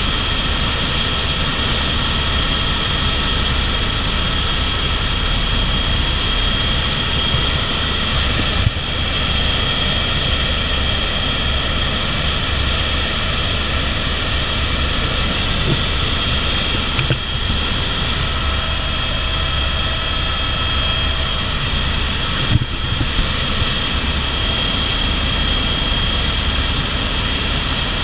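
Airbus AS350/H125 Écureuil helicopter in steady cruise, heard from inside the cabin: a constant high turbine whine over the low drone of the rotor and engine.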